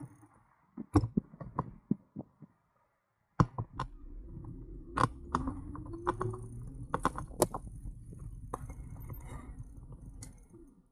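Clicks, knocks and rattles from an Engwe Engine Pro e-bike and its camera mount jolting over an uneven surface, over a low rumble of wind and road noise. The sound cuts out completely for about a second, roughly two and a half seconds in.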